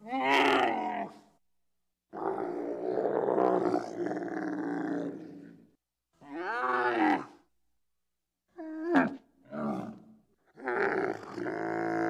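A series of six camel-like calls used as a sound effect for a prehistoric camel. They are pitched, with a wavering and bending pitch. The longest runs about three and a half seconds, and two short ones come close together about nine seconds in.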